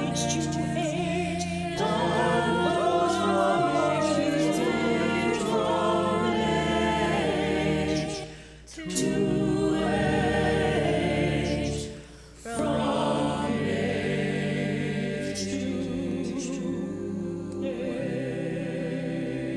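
Choir singing a sacred choral anthem, the voices holding several sustained parts together, with two brief breaks about halfway through.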